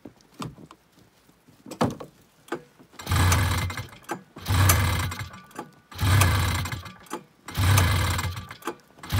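1976 Yamaha GS340 snowmobile's two-stroke engine being pull-started on its recoil starter after a few small knocks of handling. Four pulls each bring a short burst of engine running of about a second that dies away. It catches and keeps running right at the end.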